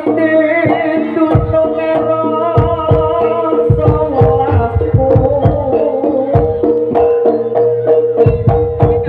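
Live jaranan gamelan music: hand drums (kendang) beating a quick, irregular pattern under a wavering melody line, with a long steady held note coming in about three and a half seconds in.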